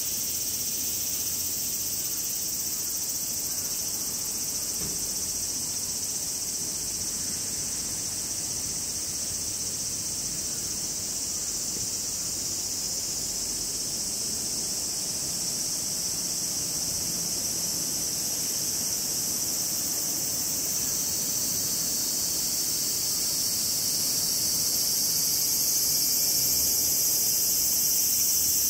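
A chorus of cicadas calling as a steady, high shrill drone. It swells louder over the last third.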